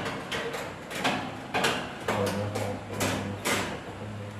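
Clicks and knocks of hard plastic toy kitchen parts being handled, about six in the space of a few seconds. A low steady hum joins about two seconds in.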